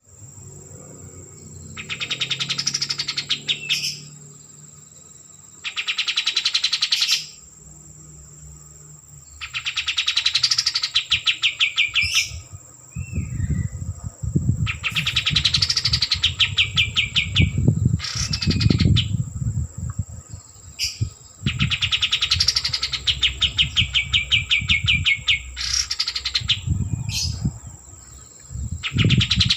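A kapas tembak, a bulbul kept as a songbird, singing vigorously: loud, repeated phrases, each a quick run of notes that rises then falls, about a second or so long, with short pauses between. A steady high whine sits underneath, and a low rumble comes in about halfway.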